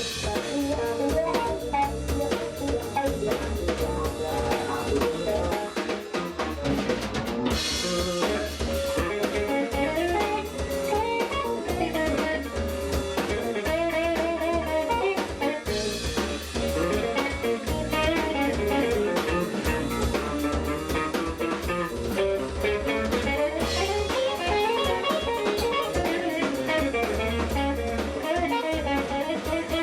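Live jazz-funk band playing a groove: drum kit, guitar and a strong low bass line.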